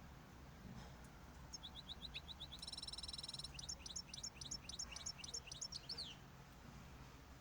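A small cage bird singing: a run of short high notes, then a fast buzzy rattle, then a quick string of chirps that ends in a falling note about six seconds in. The song is faint, over a low steady hum.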